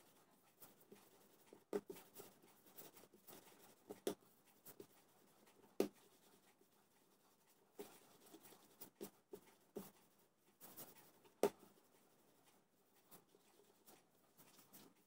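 Hands rolling yeast dough into a rope on a board: faint rubbing, with a few short soft knocks scattered through it as the hands land and lift.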